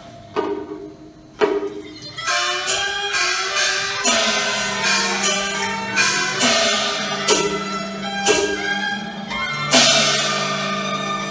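Cantonese opera instrumental accompaniment: percussion strikes, a few sparse hits at first and then about one a second, over sustained string and wind melody.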